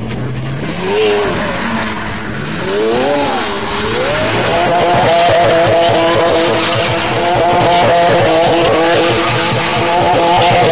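Supercar doing a smoky burnout and donuts, its tyres squealing. The engine revs up briefly twice, then is held at high revs while the rear tyres spin.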